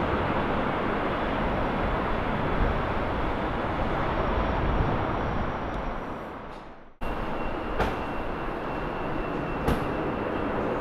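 Roar of a jet airliner's engines with wind buffeting the microphone, fading away about six to seven seconds in. After a brief drop-out it starts again abruptly as a steady rushing noise with a faint high whine.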